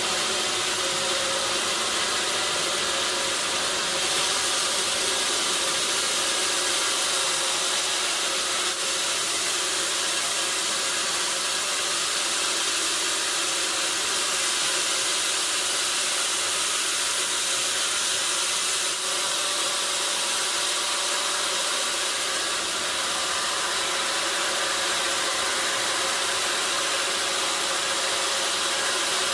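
Sawmill machinery running steadily: a loud, even mechanical hiss with a faint steady hum underneath, holding the same level throughout.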